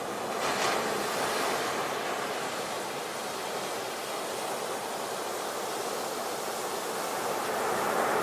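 Underwater ambience sound effect: a steady rushing water noise, swelling slightly about half a second in and again near the end.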